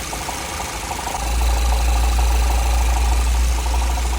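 Audi A6 C7 2.0 TFSI four-cylinder engine idling with an extraneous fast, rhythmic ticking noise whose cause is unknown. A low rumble grows louder about a second in.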